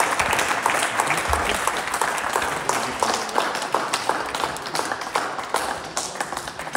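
A small crowd applauding: many hands clapping, thinning out toward the end.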